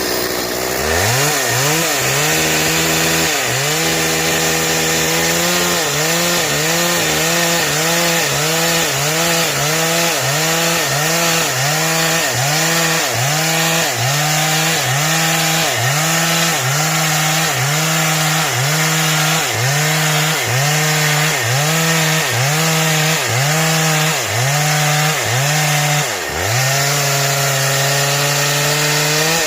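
Stihl chainsaw cutting through wood to saw boards, the engine running under load with its pitch dipping and recovering about once a second, and one deeper drop near the end.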